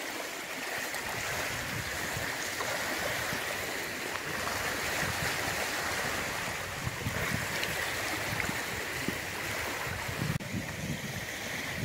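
Small wind-driven waves lapping steadily at a lakeshore, with wind gusts buffeting the microphone.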